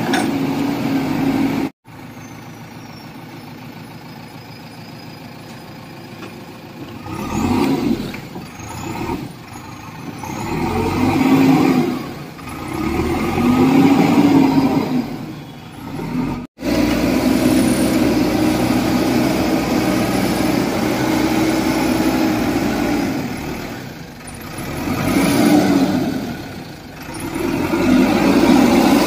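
JCB 3DX Eco Xpert backhoe loader's diesel engine running under hydraulic load, revving up and settling back every few seconds as the digging arm and loader bucket work. The sound cuts out abruptly twice.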